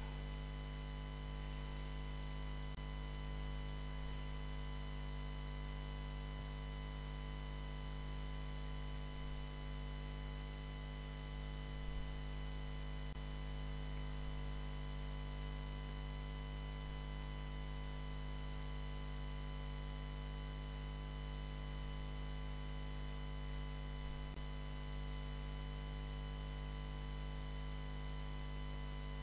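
Steady electrical mains hum and buzz with hiss on the audio line, many steady tones stacked above a low drone; one faint click about 12 seconds in.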